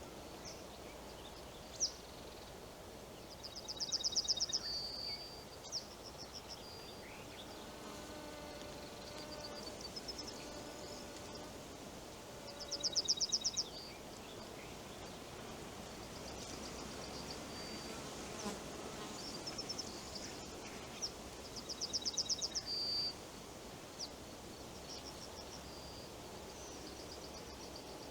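Forest ambience: a high, rapid buzzing trill about a second long, ending in a short held note, comes three times at intervals of about nine seconds. Scattered small high chirps and a soft steady hiss run underneath.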